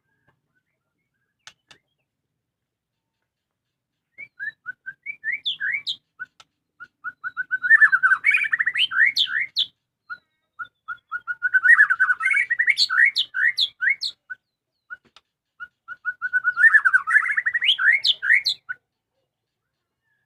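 White-rumped shama singing, starting about four seconds in. It sings three loud song phrases, each opening with a run of repeated clear notes that speeds up into a rapid, varied warble of rising and falling whistles.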